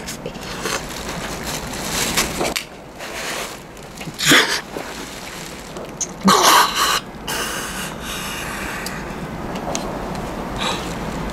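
A man's laboured, wheezing breathing as he slumps to the ground, with two loud gasps about four and six seconds in, then a steady background hiss.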